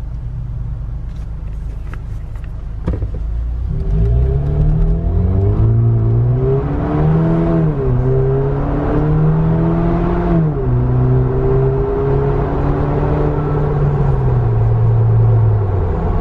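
Jeep Wrangler JL's 2.0-litre turbocharged four-cylinder heard from inside the cabin with the windows up, accelerating hard. The engine note starts climbing about four seconds in and drops back with automatic upshifts, twice in the middle and once more near the end.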